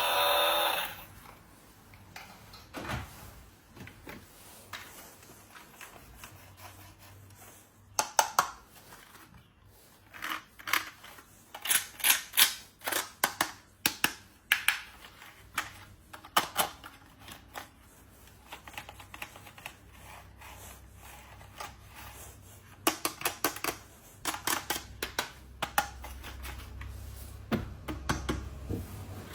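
Small hard plastic pieces clicking and tapping in irregular clusters of quick clicks, as a toy is handled. A bit of music ends about a second in.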